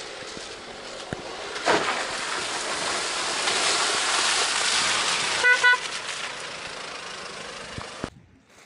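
A Nissan Navara pickup driving past on a muddy dirt track, its running noise swelling as it comes close, with two short toots of its horn about five and a half seconds in. The sound cuts off suddenly near the end.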